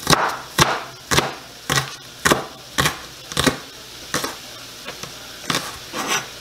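Chef's knife chopping green onions on a cutting board: a steady series of sharp knocks of the blade on the board, about two a second.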